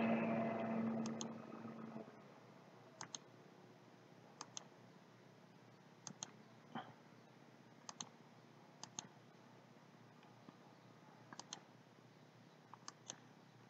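Computer mouse button clicks: about eight short double clicks, each a quick press and release, spaced irregularly a second or two apart over faint room hiss. A louder background sound fades out over the first two seconds.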